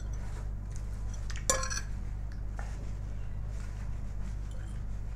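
A metal fork clinking and scraping on a ceramic plate, with one sharp ringing clink about a second and a half in and a few lighter taps. A steady low hum runs underneath.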